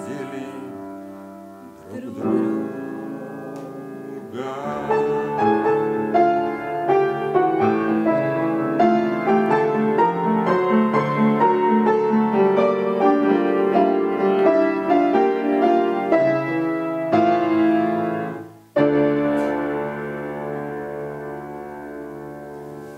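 Solo piano playing the closing passage of a song: held chords, then a long run of quick notes. After a brief break near the end, a final chord rings out and fades.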